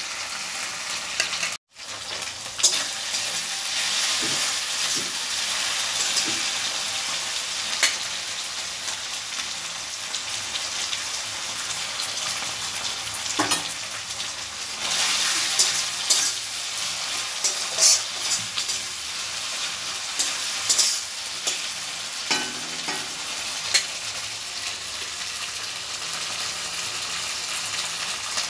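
Onion and spices sizzling in mustard oil in a black kadai (Indian wok), stirred with a metal spatula that scrapes and clicks against the pan. The steady frying hiss cuts out for an instant about two seconds in.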